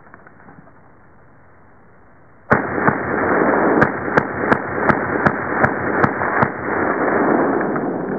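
A string of about ten rifle shots from an M&M M10 AK-pattern rifle in 7.62×39 mm, fired in quick succession at roughly three a second. The first shot comes about two and a half seconds in, with loud continuous echo running under the shots and fading slowly after the last one.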